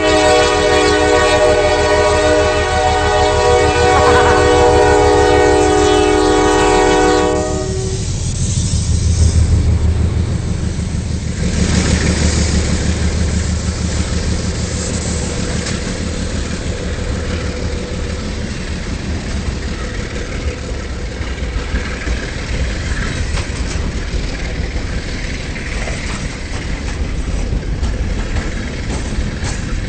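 Diesel freight locomotive's multi-note air horn sounding one long blast of about seven seconds, then cutting off. The train then rolls past with a low diesel rumble and the clickety-clack of wheels over rail joints.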